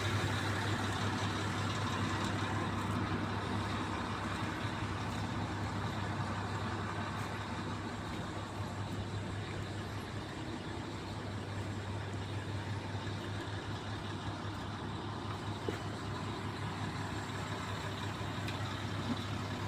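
Heavy machine's engine running steadily, with a constant low hum and no revving.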